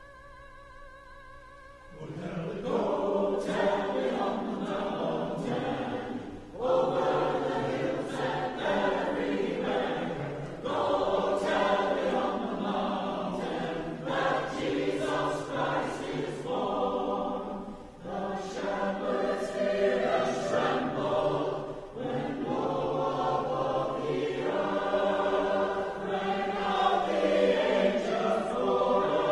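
A choir singing. A faint held note comes first, then the full choir comes in about two seconds in and sings in phrases with short breaks between them.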